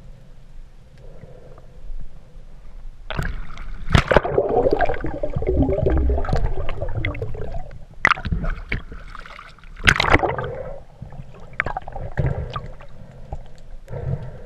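Seawater sloshing, splashing and gurgling around a snorkeler's camera as it breaks the surface and goes back under, with several sharp knocks and splashes.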